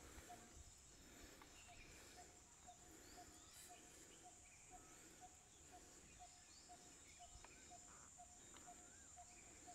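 Faint outdoor ambience: an insect's steady high whine, and a bird repeating one short low note about twice a second, with scattered chirps from other birds.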